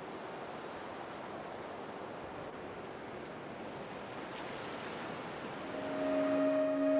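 A steady hiss like ocean surf in the ambient background music. About six seconds in, a held synth drone of two low tones fades in over it.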